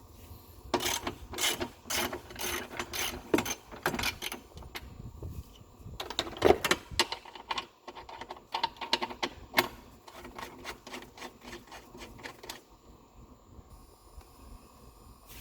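Hand tools and metal engine-bay parts clicking and rattling in two spells of irregular sharp clicks, with a pause between them, as a part is worked loose.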